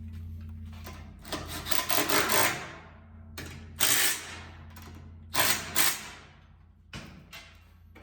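Metal parts clanking and rattling in a series of sharp knocks, a quick cluster early and then single and paired knocks, over a steady low hum: cylinder heads and head bolts being handled and set onto a small-block Chevy engine block.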